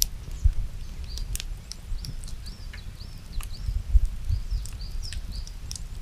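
A small bird calling again and again with short high chirps, each rising then falling, about two a second. Under it is a low rumble, with scattered sharp clicks.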